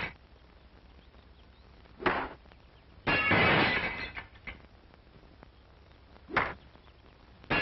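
Window glass shattering, twice: each crash is a loud crack with a second of ringing and tinkling shards, coming about a second after a short sharp hit or launch sound.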